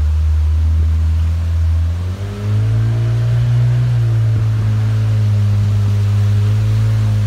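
Small motorboat's engine running slow, then opening up about two seconds in, its pitch rising and then holding steady as the boat gets under way.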